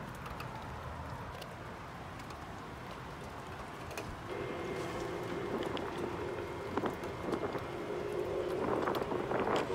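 Outdoor background hiss, then about four seconds in a steady, droning trumpet-like tone of several held pitches fades in from the sky and swells. The filmer says it is not an airplane or jet engine.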